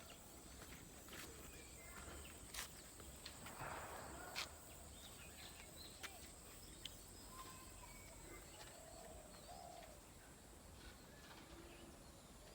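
Faint, scattered bird calls and chirps against a quiet outdoor background, with a few soft clicks.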